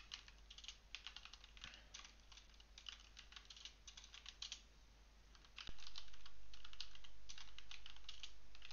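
Typing on a computer keyboard: quick runs of keystrokes with short gaps, a pause a little past halfway broken by a single low thump, then more typing.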